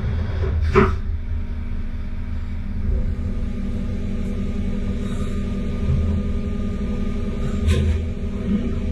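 SPEEDIO machining center turning a spinning ring workpiece with an outer-diameter tool under coolant: a steady machine hum with a couple of faint steady tones. Two brief hissing bursts come about a second in and again near the end.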